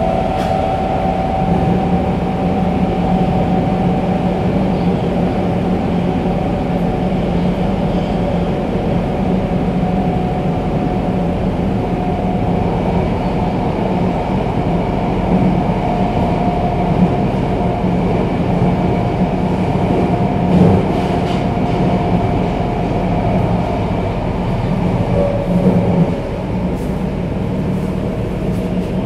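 Tokyo Metro 02 series VVVF-controlled subway car running at speed, heard from inside the car: a steady rumble of wheels and running gear with a faint steady whine running through it.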